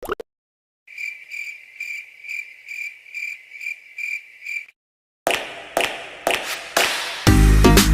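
Cricket-chirping sound effect: an even run of short chirps about twice a second, starting and stopping abruptly. A few sharp hits follow, and near the end loud music with a strong beat begins.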